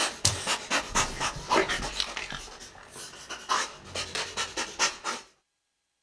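A dog panting rapidly, about four or five breaths a second, stopping suddenly about five seconds in.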